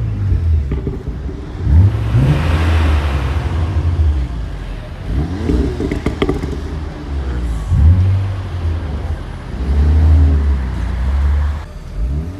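Car engines with loud exhausts revving repeatedly, the engine note sweeping up and back down about four times over a steady low drone, with a few short sharp crackles around the middle.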